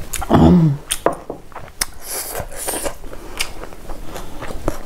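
A short voiced sigh right after a drink of water, falling in pitch about half a second in. It is followed by scattered small mouth clicks and soft rustles of a hand working rice.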